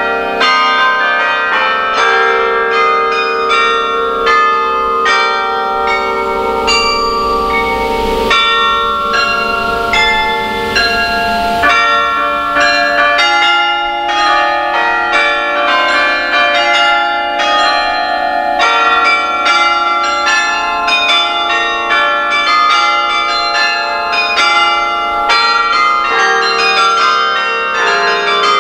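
Carillon bells played from a baton keyboard: a carol melody in quick notes over chords, each bell ringing on and overlapping the next. A rushing noise sits under the bells for a few seconds from about eight seconds in.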